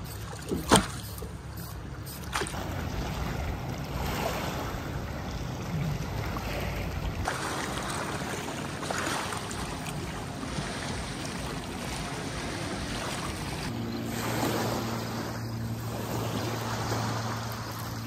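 Small waves lapping on the lakeshore, with wind on the microphone. A sharp knock about a second in, and a low steady hum from about three-quarters of the way through.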